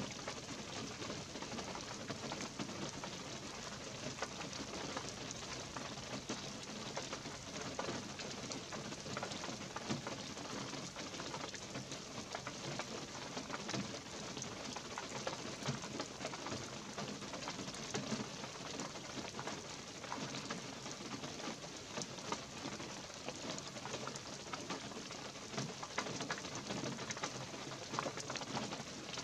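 Light rain falling steadily in a pine forest, a dense, even patter of many small drops.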